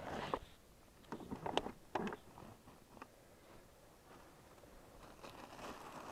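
Plastic and woven sacks being handled and shifted in an open car boot: a few short knocks and crinkles in the first half, then a quieter stretch and faint rustling that grows near the end.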